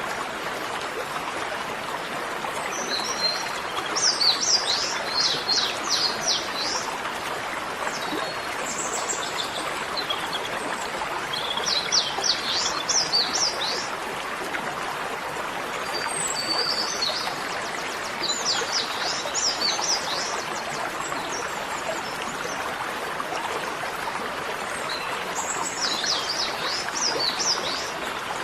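Steady rush of running water, like a stream, with a songbird singing high phrases of quick falling notes every few seconds, five phrases in all.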